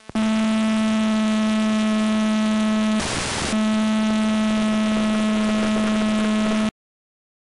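Steady electrical buzz on the audio channel of the analog FPV video downlink, with a half-second burst of radio static about three seconds in, where the link signal is weak. The sound cuts out abruptly shortly before the end.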